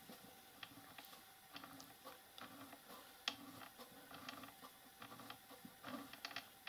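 Faint small clicks and rubbing as the knurled handwheel and graduated dial on a micro lathe's leadscrew are turned back and forth by hand, with one sharper click about three seconds in.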